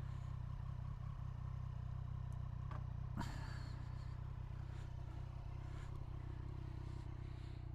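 Triumph Street Triple 765 R's three-cylinder engine running at a steady low speed, with a couple of brief clicks about three seconds in.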